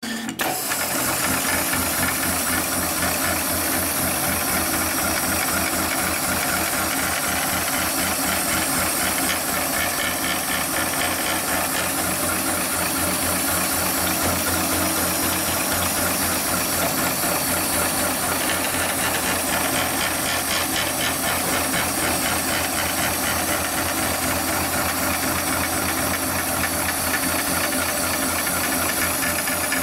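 Heavy-duty computer-controlled pattern tacking sewing machine stitching through thick synthetic webbing: a fast, even needle rattle over a continuous hiss of cold air blown onto the needle to cool it.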